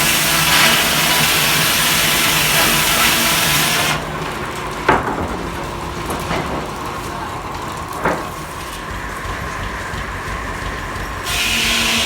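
Belt-driven sawmill saw cutting through a log, a loud steady hiss, stopping about four seconds in; the mill then runs unloaded with a low hum and two sharp knocks, and the saw bites into the wood again near the end.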